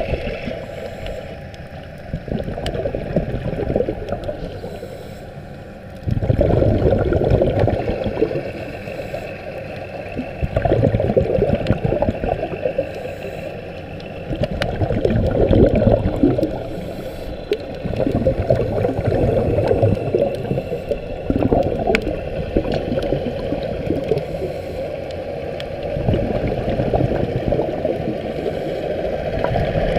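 Muffled underwater water noise heard through an underwater camera: water rushing and gurgling, swelling and easing every few seconds.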